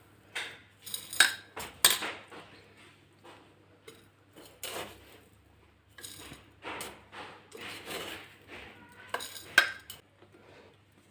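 A spoon clinking and scraping against a glass jar, with several sharp clinks that ring briefly, as salt is spooned over lemon slices packed in the jar for preserving.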